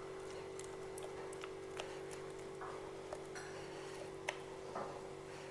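Scattered light taps and short soft scrapes of a kitchen utensil as thick cake batter is moved into a baking tin, over a steady low hum.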